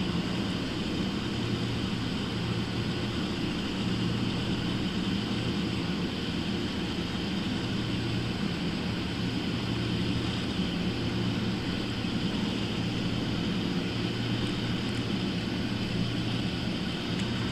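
A steady low mechanical drone with a hissy upper layer, unchanging throughout; a few faint high ticks near the end.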